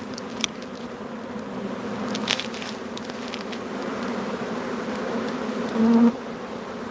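Honeybee swarm buzzing around a swarm box: a steady hum of many wings, with one bee passing close and buzzing louder for a moment about six seconds in. The queen is not in the box, and the bees are flying back out to search for her.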